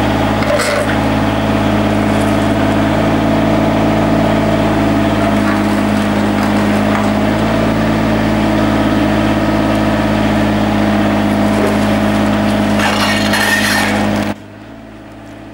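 Mini excavator's diesel engine running steadily while its arm lifts a millstone onto its edge, with a short crack about half a second in and a longer scraping rattle near the end. The engine sound cuts off suddenly just before the end.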